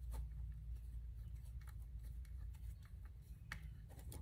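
A few faint clicks and light scrapes from a small Allen key turning a bolt into a nut through an acrylic panel, over a low steady hum.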